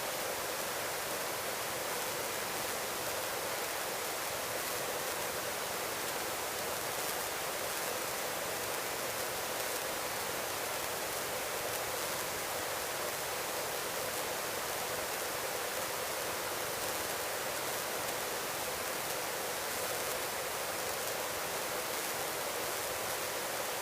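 Steady, even hiss of a helicopter's intercom audio in flight, with no rotor beat or engine tone standing out.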